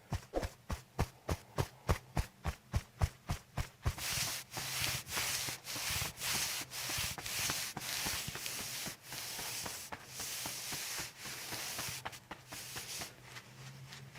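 Hands working on a patient's body during chiropractic treatment: a quick run of about fifteen taps, roughly four a second, then rhythmic rubbing of hands over skin and clothing, about two strokes a second.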